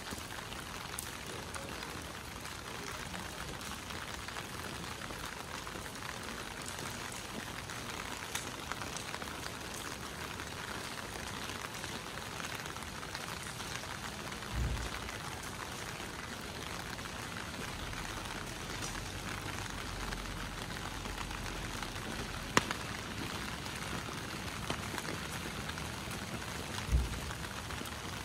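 Steady rain falling, an even hiss. Two short low thumps, about halfway through and near the end, and one sharp click between them.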